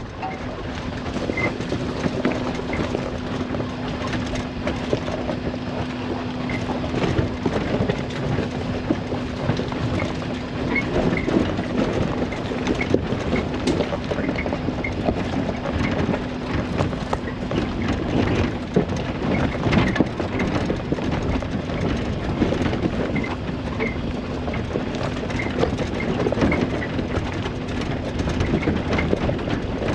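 Suzuki Jimny off-roading: the engine runs at a steady drone while the vehicle jolts over rough ground, with constant rattling, clattering and knocking.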